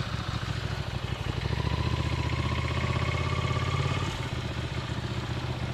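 Ducati motorcycle's V-twin engine running under way, its pitch rising slowly for a few seconds and then easing off about four seconds in.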